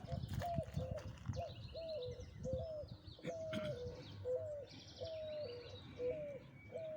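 Birds calling: a low, hollow hooting note repeated about twice a second, with higher chirps and short trills from other birds over it.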